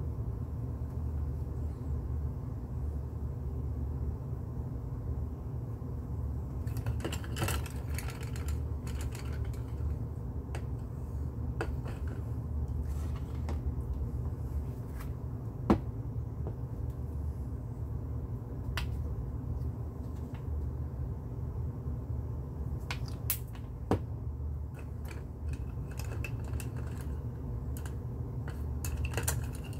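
Steady low hum with scattered light clicks and taps, coming in small clusters, and one sharper click about halfway through.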